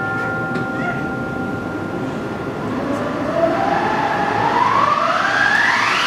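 Recorded orchestral music: held notes under a rushing wind-machine (éoliphone) sound that rises steadily in pitch through the second half.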